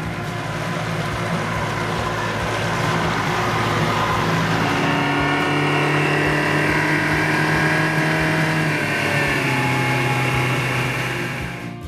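Four-stroke outboard motor running a boat at speed, heard close by at the stern, with its steady engine note over water and wind noise. It grows louder over the first few seconds, then holds steady and cuts off just before the end.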